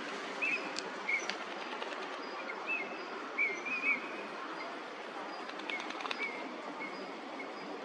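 Eurasian teal giving short, high whistled calls, singly and in quick pairs, scattered irregularly over a steady background hiss.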